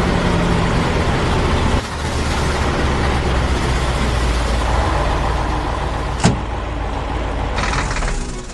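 Heavy vehicle engine running with a dense, steady rumble. About six seconds in, a quick falling whoosh cuts across it.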